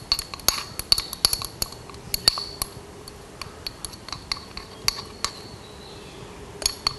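Irregular light clinks and taps of a thin rod knocking and scraping against a small tin of tint paste as the paste is worked out of it. The clinks come thick in the first three seconds, then only now and then.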